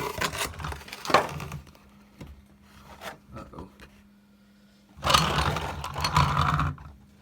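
Plastic packaging from a diecast car box being handled: a few sharp clicks and knocks, then a couple of seconds of crinkling and scraping about five seconds in.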